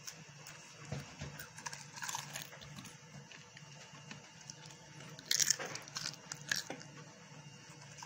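Crisp microwave-baked lavash chips crunching and crackling as they are picked up and bitten, in short scattered bursts with the loudest cluster about five and a half seconds in. A steady low hum runs underneath.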